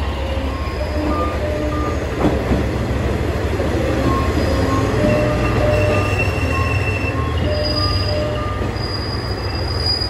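Diesel railcar pulling into the platform, its engine and wheels giving a steady low rumble, with brakes and wheels squealing in long steady tones through the second half.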